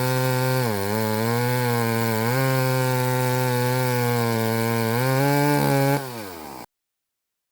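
McCulloch 10-10A two-stroke chainsaw running at high revs while cutting wood. The engine note dips twice under load in the cut and recovers, then climbs briefly. About six seconds in it drops away, winding down in pitch, and cuts off suddenly.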